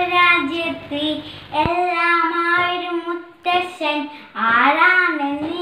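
A young boy singing solo without accompaniment, holding long notes with short breaks between phrases.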